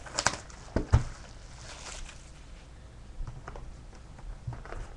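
A cardboard box of Playoff Contenders hockey trading cards being handled and opened. There are several sharp knocks and taps in the first second, the loudest about a second in, then lighter crinkling and scattered ticks.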